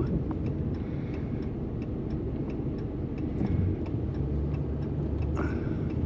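Truck cab interior: low engine and tyre rumble as the truck slows to pull over, with the turn signal ticking steadily.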